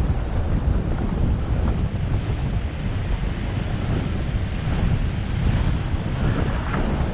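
Steady rush of airflow buffeting a wing-mounted camera's microphone as a hang glider soars in flight.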